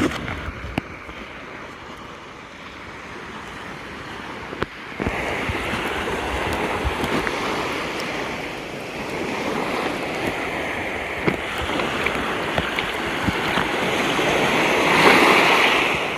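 Small sea waves washing onto a beach, with wind buffeting the microphone. The surf gets louder about five seconds in and swells again near the end.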